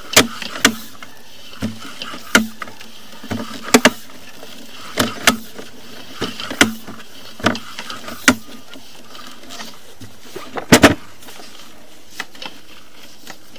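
Sewer inspection camera's push cable being fed by hand into the sewer line: irregular sharp clicks and knocks, roughly one a second, with a louder double knock near the end.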